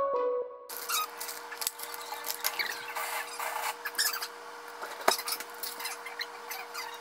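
Paper and plastic wrappers of injection supplies crinkling and rustling as they are unwrapped by hand, with small clicks and short squeaky crackles, over a steady low hum. A last few notes of music end about half a second in.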